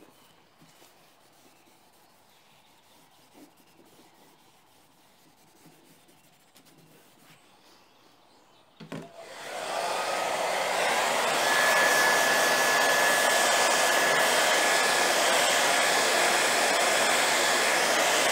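Faint rubbing of a rag on a painted MDF panel, then about nine seconds in a click as a Remington hand-held hair dryer switches on. It rises to a steady blowing rush with a thin high whine and keeps running while it dries the metallic paint on the board.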